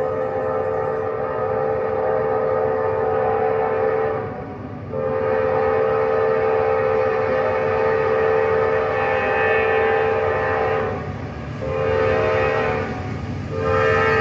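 Approaching freight or passenger locomotive's air horn sounding the grade-crossing signal: the end of a long blast, a second long blast of about six seconds, a short blast, then a final long blast starting near the end.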